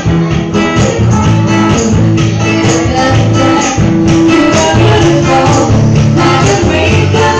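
Loud live acoustic music: a strummed acoustic guitar with hand percussion keeping a steady beat, and a singer holding notes.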